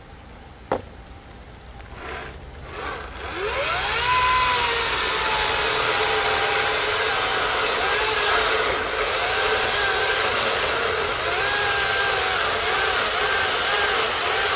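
Echo DCS-5000 battery chainsaw, after a sharp click just under a second in, spinning up with a rising whine about three seconds in, then cutting through a thick log. Its motor pitch dips and recovers over and over as the chain loads up in the wood.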